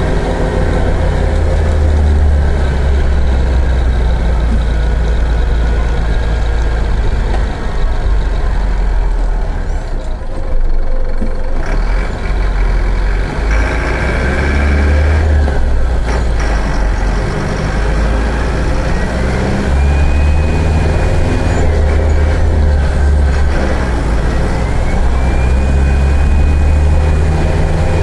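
Mercedes-Benz OF-1418 bus chassis engine running under load as the bus is driven and accelerated hard through its six-speed gearbox. The engine sound drops away briefly about ten seconds in, and a thin whine rises twice in the second half.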